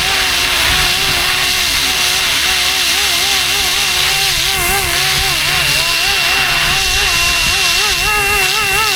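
Fly-Wing MH-60R SeaHawk 470-size RC helicopter in flight: a motor and rotor whine that wavers up and down in pitch about once or twice a second, with a steady high tone above it and a haze of wind noise.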